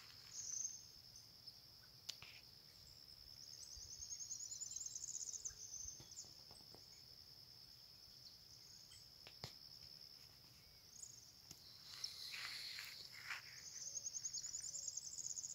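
Insects singing in a faint, steady high-pitched trill. Twice, a second, faster pulsing trill rises over it for a second or two.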